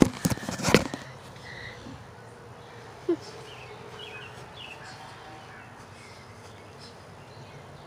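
A burst of knocks and rubbing from the phone being handled and set down, then a quiet outdoor background with a few faint bird chirps.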